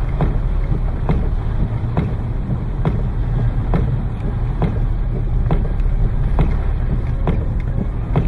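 Heavy rain with the steady low rumble of a vehicle, and a regular knock a little under once a second.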